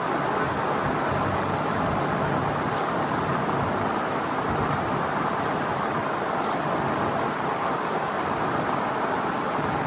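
Electric fan running on high: a steady, even rushing noise with no change.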